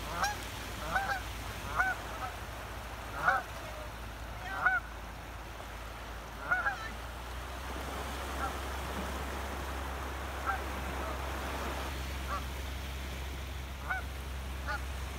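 Canada geese honking: a string of short, rising-and-falling honks about every second or two, loud at first and becoming fainter and sparser after about seven seconds. The geese are calling as they are chased by a dog.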